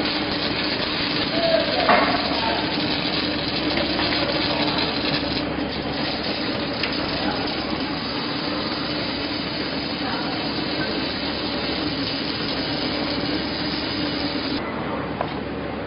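Robotic arc welding: the steady crackling hiss of the welding arc, which cuts off abruptly near the end as the arc stops, over a steady machine hum.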